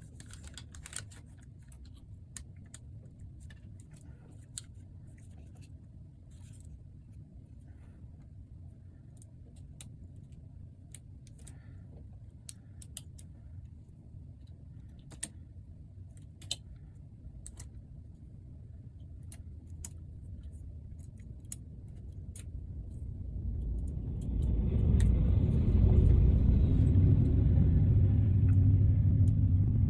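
Scattered small sharp clicks of connectors and small parts being handled on a laptop logic board, over a low steady rumble. About 23 seconds in, the rumble grows much louder and stays loud.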